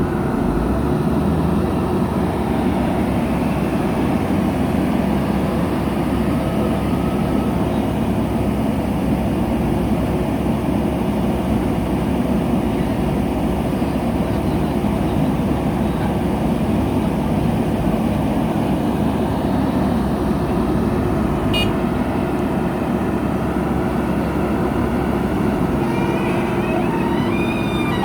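Diesel engine of heavy construction machinery running steadily under load, with a brief sharp click about 21 seconds in.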